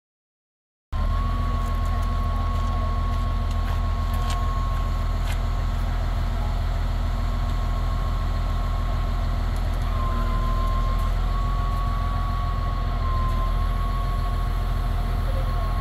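Wheeled heavy-equipment machine running steadily while it holds a boat up in lifting straps, a low engine rumble with a high whine over it that dips briefly twice. The sound cuts in about a second in.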